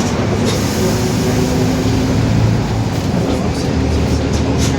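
Mercedes-Benz OF-1721 BlueTec 5 bus under way: the front-mounted diesel engine running steadily with the differential growling beneath it, with road noise and body rattles. A short hiss comes about half a second in, and a few knocks near the end.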